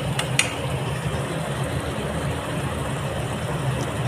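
Steady low rushing noise of okra masala cooking in a pan on a gas stove, with two light clicks of the spoon against the pan just after the start.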